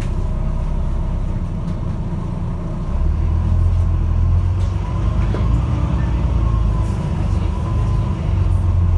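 Diesel engine of a Volvo B9TL double-decker bus groaning, heard from inside the bus. The low rumble grows louder about three seconds in as the bus pulls away.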